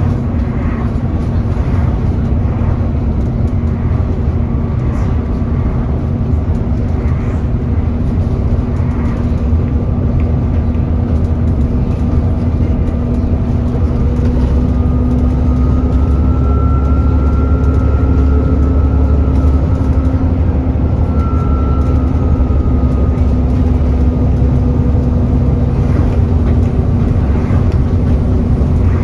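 Alexander Dennis Enviro400 E40D double-decker bus running under way, a steady low diesel drone that grows a little louder about halfway through. A high whine rises and fades in the middle, the loud 'hoover' noise this bus is known for.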